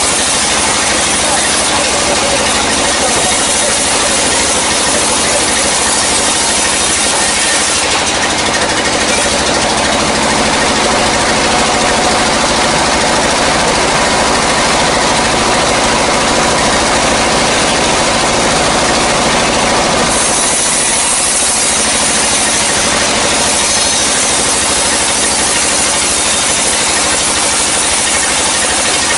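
Sawmill band saw ripping lengthwise through a dry, years-old log: a steady, loud rasp of blade in wood over the machine's running hum. The cutting turns harsher and higher from about eight seconds in until about twenty seconds in.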